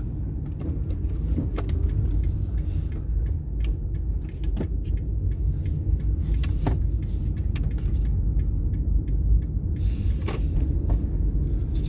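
Car driving on town roads, heard from inside the cabin: a steady low rumble of engine and road noise, with a few faint scattered clicks.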